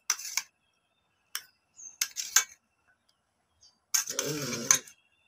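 Metal spoon clinking against a steel plate and a glass bowl while syrup-soaked gulab jamuns are spooned out. There are a few sharp clinks in the first two and a half seconds, then a louder, longer rasping noise about four seconds in.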